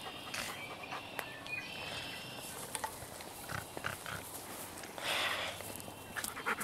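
A dog panting close by, with scattered small clicks and a short hiss about five seconds in.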